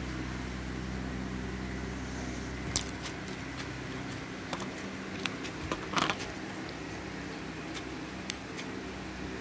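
Pink glitter slime squeezed and pressed under a hand, giving scattered small wet clicks and pops, the loudest about six seconds in. A steady low mechanical hum runs underneath.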